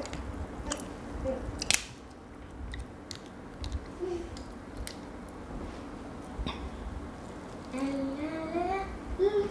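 Cooked lobster shell being cracked and picked apart by hand, with sharp clicks and snaps of shell, together with close-up chewing. Near the end comes a short rising hum.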